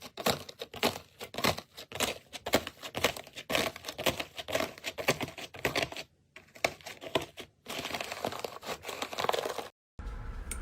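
Slime being squeezed and poked by hand, giving a fast, irregular run of sticky clicks, pops and crackles, with a denser squishing stretch near the end. It cuts off, and music starts just before the end.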